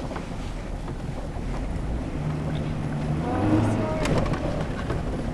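Hummer H3 heard from inside the cabin while driving: a steady low engine and road rumble, with the engine note holding a steady drone for about a second midway and then dropping lower.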